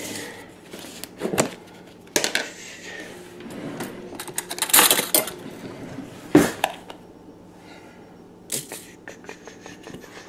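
Irregular clicks, taps and short scrapes from handling a plastic drip coffee maker and a coffee spoon, with the loudest scraping clatter about halfway through.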